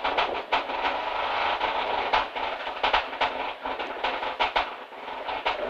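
Mitsubishi Lancer Evolution IX rally car's turbocharged four-cylinder engine idling at a standstill, heard inside the stripped cabin, with many irregular sharp clicks and rattles over a steady running sound.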